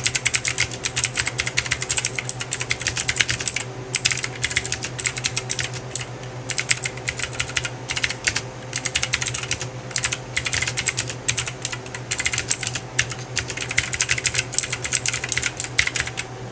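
Rapid typing on a Lingbao Jiguanshi mini mechanical keyboard with blue (clicky) switches: dense crisp key clicks in bursts, broken by short pauses every few seconds, over a steady low hum.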